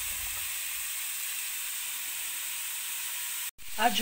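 Steady sizzling hiss from a frying pan of freshly cut pear pieces on a gas stove, with a few faint clicks of pieces settling at the start. The sound cuts out abruptly for a moment near the end.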